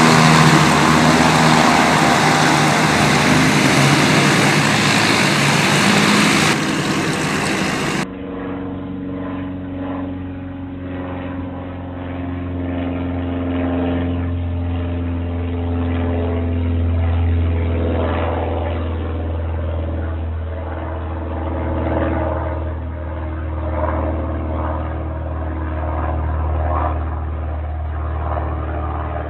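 Propeller aircraft engine running steadily at high power during takeoff and climb. About eight seconds in, the sound cuts abruptly to a duller, narrower recording dominated by a deep, steady engine drone.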